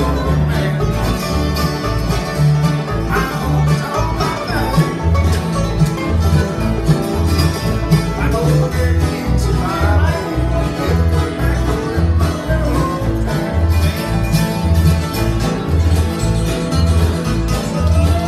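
Live bluegrass band playing an instrumental passage: banjo and acoustic guitar picking over a steady bass line that steps back and forth between two notes.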